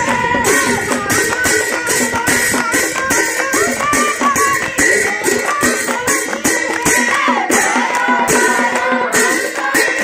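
A group of women singing a devotional naam chant together, with rhythmic hand clapping and a jingling percussion beat keeping steady time.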